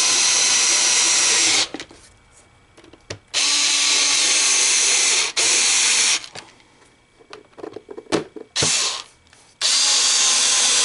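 Small Ryobi cordless screwdriver driving screws into a plastic hopper case, its motor whining steadily in several short runs of one to two seconds with brief pauses between, as it moves from screw to screw.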